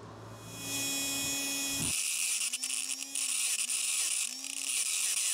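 Small DC motor of a stripped-down 12V car tyre-pump compressor switched on and running, a steady high-pitched whir as it spins its exposed drive gears. It starts about half a second in.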